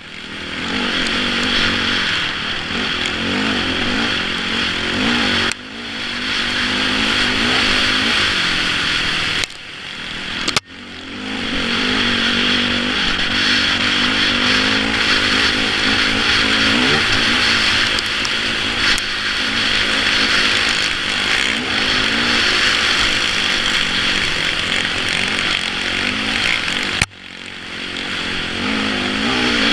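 Yamaha YZ450F four-stroke single-cylinder dirt bike engine running under changing throttle, its pitch wavering, with wind rush over a helmet-mounted microphone. The sound drops sharply a few times, about six, ten and twenty-seven seconds in, before building back up.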